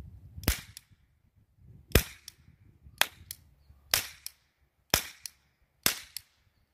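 Dollar-store toy cap gun fired in a string of shots, about one a second: six sharp, loud cracks, most followed closely by a fainter second crack.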